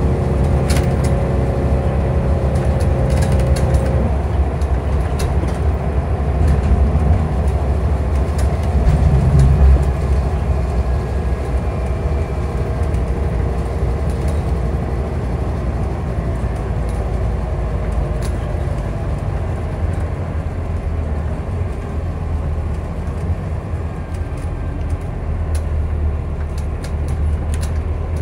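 Scania bus heard from inside the passenger saloon while under way: a steady low engine and road rumble with occasional light rattles. A pitched engine note in the first few seconds drops away about four seconds in.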